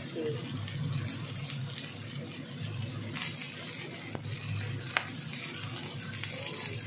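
Whole shrimp sizzling gently in oil in a frying pan, a steady hiss. There is one sharp tick about five seconds in.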